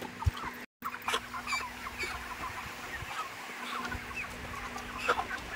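A house full of broiler chickens clucking, many short overlapping calls from the flock, over a steady low hum. The sound cuts out completely for a moment under a second in.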